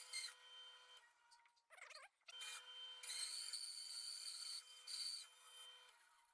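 Bandsaw cutting through a small tea tree burl: a steady high hiss with a steady hum. The cut drops away about a second in, comes back before the halfway point and fades near the end.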